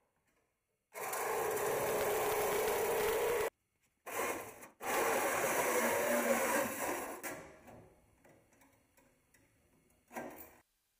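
Corded reciprocating saw (Sawzall) cutting through a sheet-metal truck bumper. It runs in two long cuts of a few seconds each with a short burst between them, and a brief burst comes near the end, each stopping abruptly.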